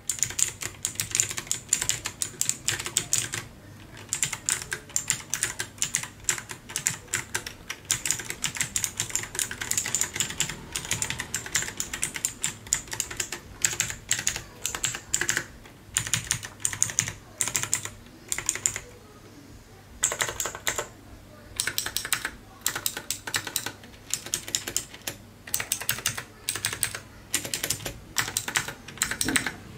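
Typing on a Leaven K550 mechanical keyboard with blue clicky switches: fast runs of sharp, high clicks from the keys, breaking into shorter bursts of keystrokes with brief pauses in the second half.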